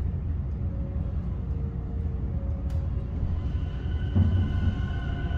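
Interior sound of an MBTA Green Line light-rail car: a steady low rumble, with a steady electric whine of several tones coming in about halfway through and a single thump near the end.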